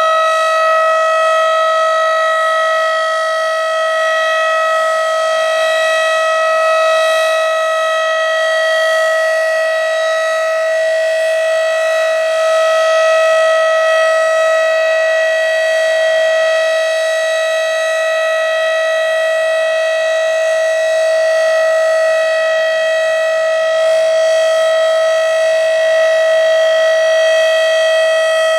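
Federal Signal Model 5B mechanical outdoor warning siren sounding its steady alert signal: one loud, unbroken tone that holds its pitch, swelling and easing slightly in loudness as it rotates.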